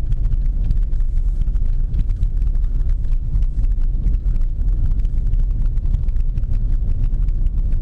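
Cabin noise of a Volkswagen Polo on the move: steady low road and tyre rumble with many small knocks from the uneven road surface. No knocking comes from the rear seat.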